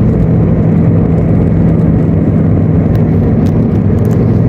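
Steady hum and road rumble of a moving car, heard from inside the cabin, with a low drone and a few faint ticks.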